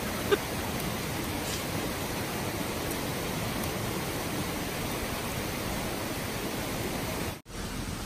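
Steady rush of a valley stream's running water, with a brief dropout near the end.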